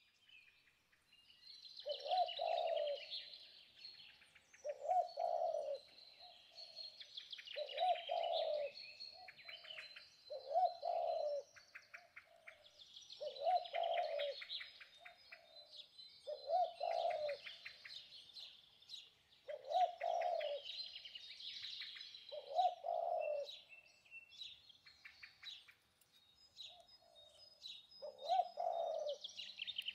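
Wild birds calling: one bird repeats a low call about every three seconds, over steady high chirping and trilling from smaller birds.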